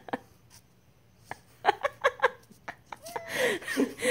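A person laughing in a few short bursts, then near the end a cat, annoyed at being held up, starts a drawn-out meow that wavers in pitch.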